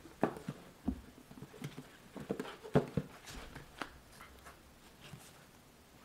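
Paperback books being lifted out of a cardboard box and squared into a stack: a string of soft, irregular taps and knocks that thin out near the end.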